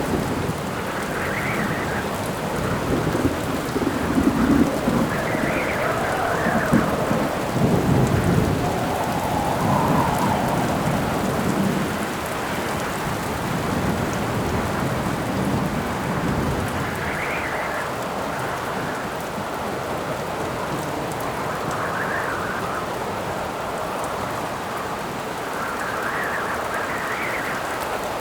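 Rainstorm: steady rain hiss with gusts of wind swelling and fading every few seconds, and low rolling thunder through the first half.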